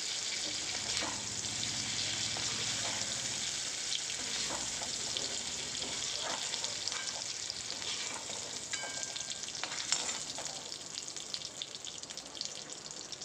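Paneer cubes sizzling in hot oil in a kadai, with a perforated steel ladle scraping and clinking against the pan as the lightly fried cubes are scooped out. The sizzle thins and grows quieter toward the end as the pan empties.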